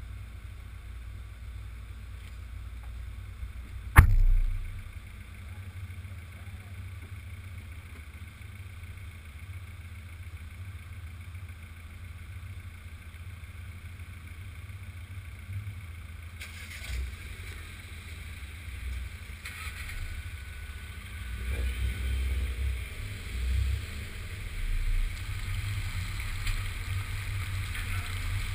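Škoda Octavia RS engine idling as a low steady rumble, with one sharp knock about four seconds in. Near the end the car pulls away on a soaking wet track, and the engine grows louder under a rising hiss of tyre spray.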